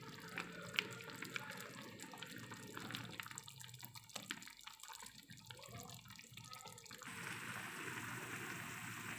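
Beef noodle soup boiling in a pot: a steady bubbling hiss with many small pops and ticks. It gets louder about seven seconds in.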